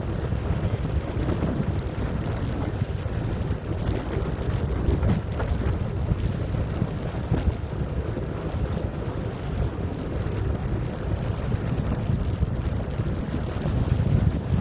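Wind buffeting the microphone and road rumble from a faired recumbent bicycle rolling on asphalt at about 34 km/h; a steady low rushing noise.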